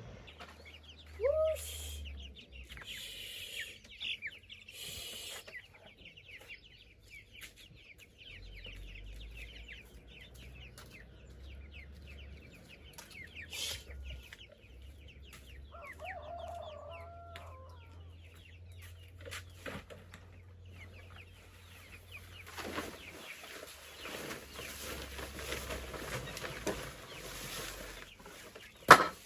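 Chickens clucking, with a short rising call early on and another call about halfway through. Near the end there is a stretch of steady hiss, then one sharp knock.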